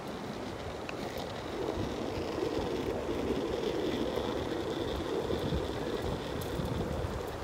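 Longboard wheels rolling on an asphalt path, a steady rumble that grows louder about a second and a half in, with wind on the microphone.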